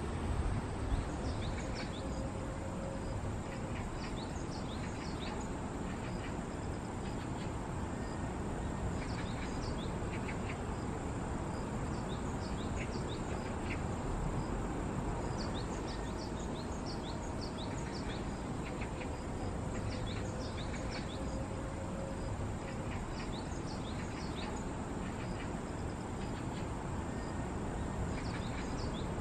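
Outdoor ambience: a steady low background noise with many short, scattered high chirps throughout.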